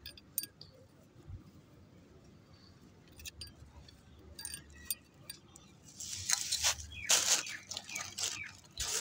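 Faint scattered taps and clicks, then from about six seconds in a run of gritty rustling and scraping as potting soil is scooped and pressed in by a gloved hand.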